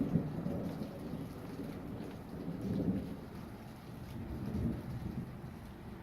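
Thunder rumbling low, swelling and easing a few times as it rolls on.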